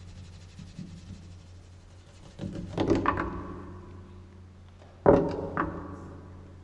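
Cello: a low steady drone, then two sharp attacks on the strings, about halfway and near the end. Each rings out with a pitched tone and fades over a second or so.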